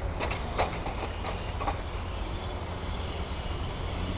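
Electric M-chassis mini RC cars racing: a steady whir and hiss of motors and tyres over a low rumble, with several sharp clicks in the first two seconds.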